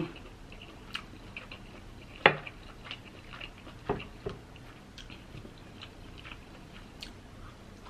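Close-miked mouth sounds of someone chewing seafood boil: scattered small clicks of chewing with a few louder smacks, the loudest about two seconds in.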